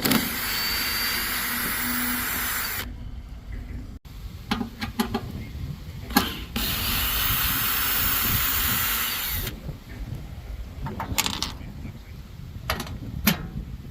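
Power drill spinning a Torx 30 bit to back out the wiper-assembly screws, in two runs of about three seconds each, with short clicks and knocks between and after them.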